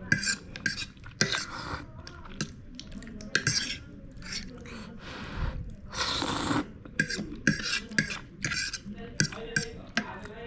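An eating utensil clinking and scraping against a bowl of instant noodles in many short, irregular strikes, with a longer noisy stretch of about a second midway through.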